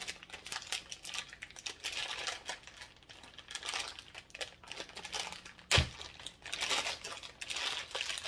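Clear plastic wrapping around a bottle crinkling and rustling in irregular handfuls as it is worked open and pulled off. There is a single loud thump a little under six seconds in.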